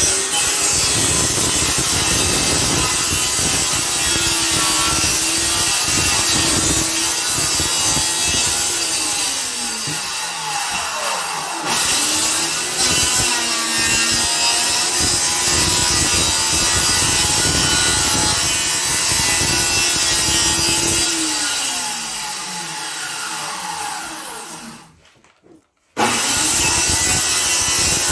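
Electric circular saw cutting through plywood sheet. The motor runs under load, winds down with falling pitch about ten seconds in and starts again, then winds down once more near the end, goes briefly quiet and resumes.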